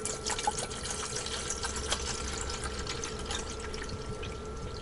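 Water poured from a large plastic bottle into a small kettle, splashing and trickling. A steady hum runs underneath.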